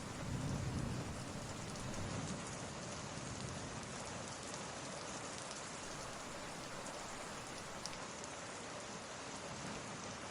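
Steady rain ambience laid under the audio, an even patter with no pauses. A low rumble of thunder dies away in the first second or so.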